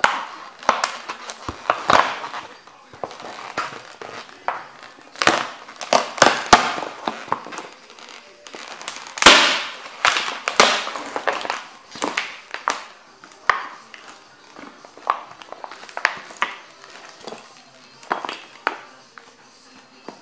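Cofra Thermo rubber boots stomping on a canvas painting: irregular cracks and snaps of its wooden stretcher frame splintering, with crackling and crinkling of the canvas and its crumbling relief. The loudest crack comes about nine seconds in.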